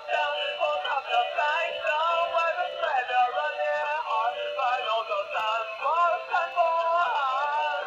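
Singing, dancing Mario plush toy playing its song through a small built-in speaker: a high, electronic-sounding singing voice over a tune, thin and without bass.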